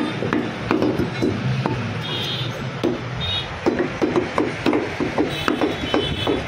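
Butcher's cleaver chopping goat meat into small pieces on a wooden log block: a quick run of chops, a few a second, with a brief lull in the middle.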